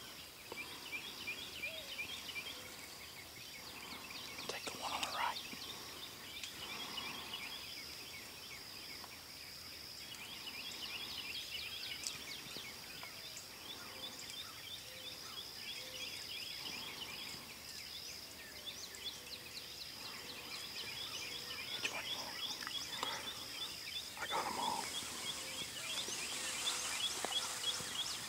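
Outdoor ambience: a steady chorus of rapid high chirps over a thin, steady high whine, with a few short, lower calls from wild turkeys.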